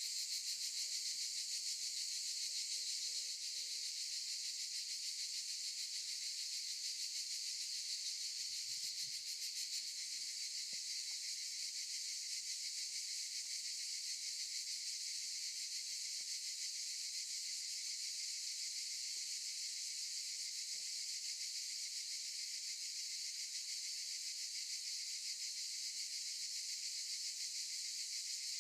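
A chorus of cicadas buzzing steadily and continuously, a dense high-pitched shimmering drone with no break.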